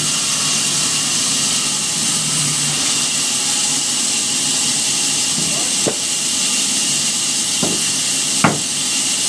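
A loud, steady hiss, as of a machine running, with three sharp knocks in the last few seconds, the last the loudest.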